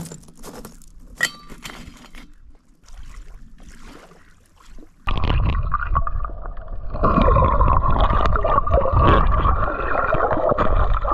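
Bare feet crunching over loose coral rubble, then about five seconds in a sudden switch to the loud, muffled rushing and bubbling of water heard through a camera held underwater.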